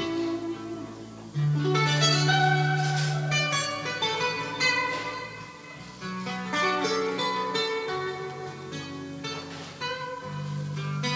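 Plucked guitar music over a held bass line, played back on a Panasonic cassette deck.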